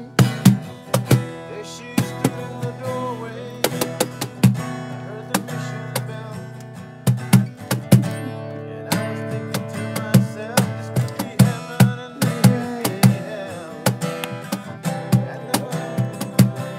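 Acoustic guitar strummed in a steady rhythm, with a cajón struck in time beneath it.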